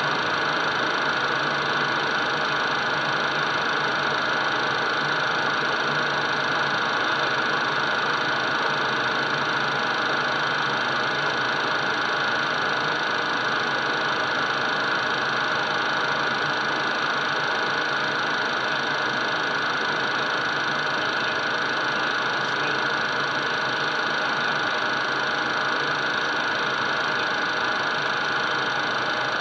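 Steady cockpit noise of a twin-turbofan Cessna Citation business jet in flight on approach: engine noise and rushing airflow with a constant high whine, unchanging throughout.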